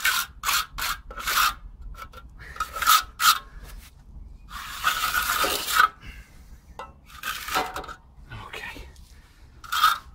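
Steel hand trowel scraping and smoothing a stiff, wet concrete mix around a steel base plate, in irregular strokes with one longer stroke about five seconds in.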